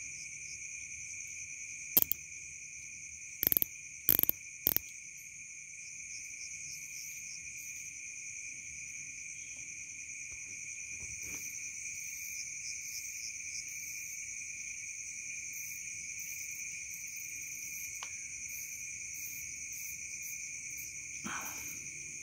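Night chorus of crickets: a steady shrill trilling in two pitches. A few sharp clicks or knocks come between about two and five seconds in.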